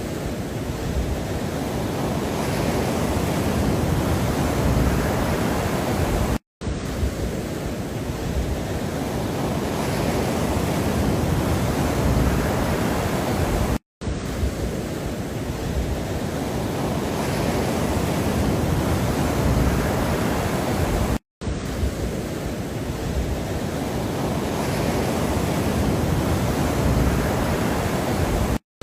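Steady rushing ambient noise, as a short loop that drops out to silence for a split second about every seven and a half seconds.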